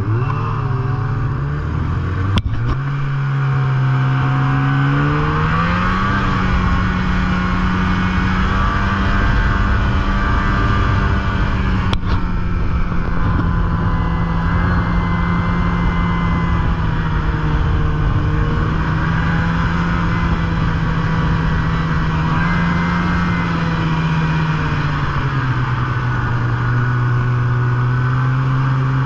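Polaris snowmobile engine accelerating away, its pitch climbing over the first few seconds, then running at a steady speed. It eases back to a lower, steady pitch near the end.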